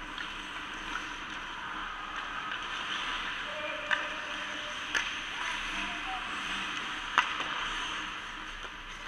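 Ice hockey game in an arena: skates scraping across the ice in a steady hiss, with sharp clacks of sticks and puck about four, five and seven seconds in, and voices in the background.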